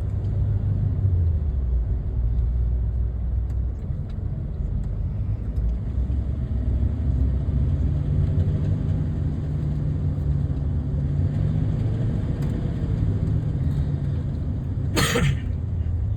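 Steady low road and engine rumble of a car driving in traffic, its engine pitch shifting slightly. A brief sharp knock near the end.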